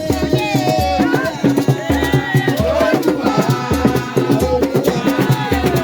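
Upbeat music with a bass beat about twice a second, shaker-like percussion and a singing voice carrying the melody.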